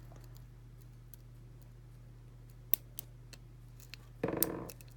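Light, scattered clicks of a lock pick working the pins of a 5-pin Ace closed-shackle padlock held under heavy tension. One sharper click comes a little under three seconds in, and a brief louder noise about a second before the end. A steady low hum runs underneath.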